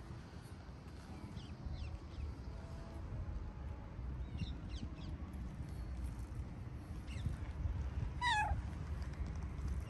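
A tabby cat gives one short meow, falling in pitch, near the end, over a steady low background rumble.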